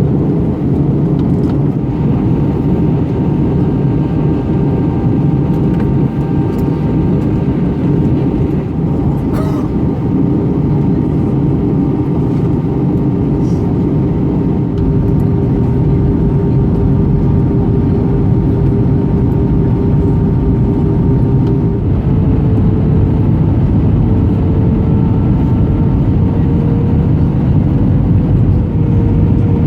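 Cabin noise inside an Airbus A319 airliner near landing: a steady rush of airflow under the hum of its jet engines. About two-thirds of the way through, one engine tone steps up in pitch and keeps rising slowly, as the engines change thrust.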